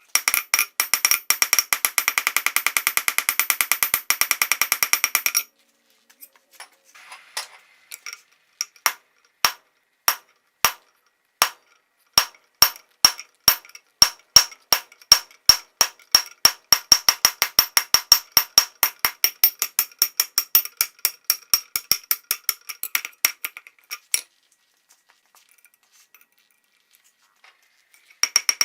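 Hammer blows forging coil-spring steel on an anvil, each strike ringing. A fast run of blows, then slower single strikes, then another fast run that stops a few seconds before the end.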